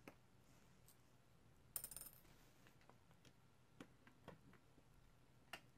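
Faint small clicks of a precision Phillips screwdriver working tiny screws out of a tablet's motherboard, with one brief metallic clatter about two seconds in.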